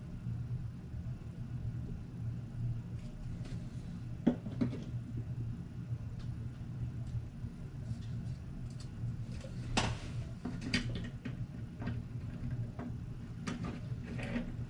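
Scattered small clicks and taps of small plastic switch parts being handled and fitted by hand, a few at a time, over a steady low hum.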